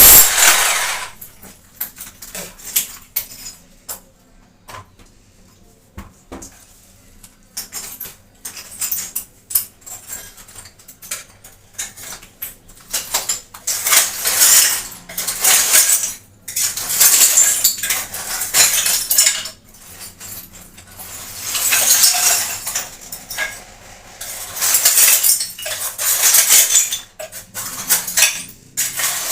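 Metal hand tools clinking and scraping against hard tile and masonry surfaces in irregular bursts during bathroom plumbing repair work. A power drill cuts off right at the start.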